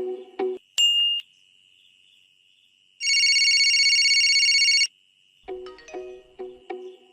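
Background music with a plucked, steady beat breaks off, followed by a short electronic ding. After a pause, a loud electronic trilling ring like a phone ringtone lasts about two seconds, then the music starts again.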